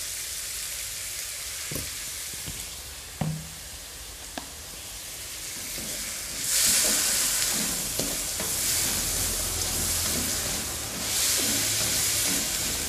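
Sliced bitter melon and anchovies sizzling in a wok of hot oil with soy sauce just poured in, as a slotted spatula stirs and scrapes the pan. A few sharp taps of the spatula against the wok come in the first seconds, and the sizzle grows louder about six and a half seconds in as the stirring picks up.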